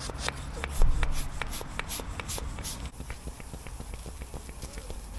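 Small handheld bicycle pump worked in quick strokes, about three or four a second, inflating a freshly patched inner tube to test the patch. The strokes are louder and hissier for about the first three seconds, then lighter.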